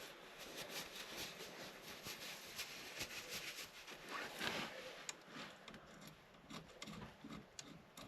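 Handling noise of hands working with small parts: irregular light clicks and rubbing.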